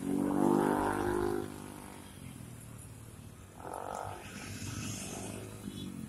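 Road traffic passing close by: a vehicle engine drones past during the first second and a half, another vehicle goes by about four seconds in, with steady traffic noise between.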